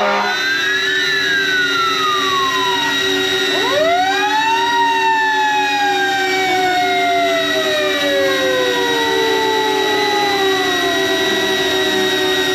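Fire engine siren heard over the steady high whine of a DJI Avata FPV drone's propellers close to the microphone. A brief horn blast comes right at the start and a siren wail rises and falls over the first three seconds. About four seconds in, a siren winds up quickly and then slowly winds down over some seven seconds.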